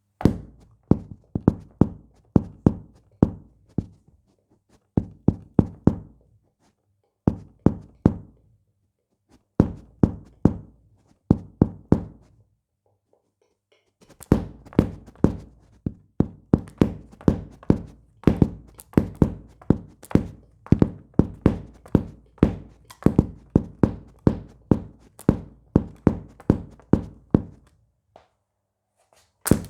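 Bass drum kicked with a 3D-printed pedal, each stroke a deep thud with a short low ring. Short runs of quick kicks with pauses between them, then a long unbroken run of rapid kicks from about halfway through, and a single last kick near the end.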